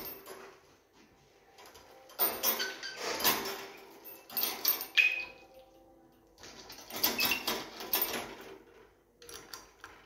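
Budgerigar in its cage chattering in four scratchy bursts, with a few short high chirps among them.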